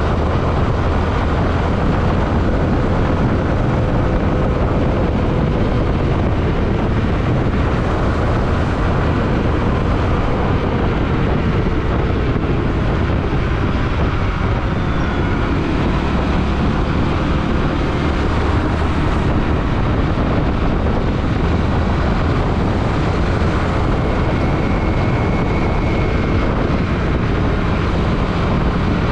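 Steady wind rush and road noise from a moving motorcycle, with the drone of its single-cylinder engine beneath.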